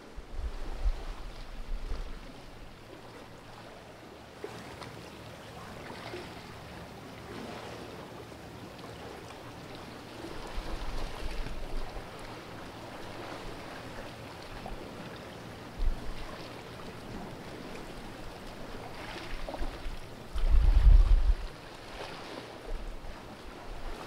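Calm sea washing and lapping against rocks in a narrow gully, in soft swells. Gusts of wind buffet the microphone with low rumbles, the strongest for about a second near the end.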